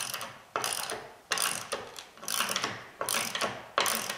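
Hand socket ratchet tightening a bolt on the base plate of a steel I-beam railing post, in repeated strokes with a burst of pawl clicks on each, about one every three-quarters of a second.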